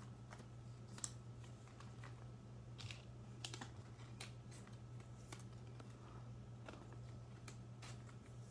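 Faint, irregular light clicks and taps of trading cards and plastic card sleeves being handled and sorted on a tabletop, over a steady low hum.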